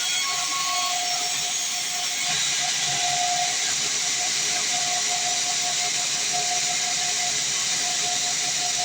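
Band sawmill blade cutting through a log, a steady hissing sawing noise with a faint whine.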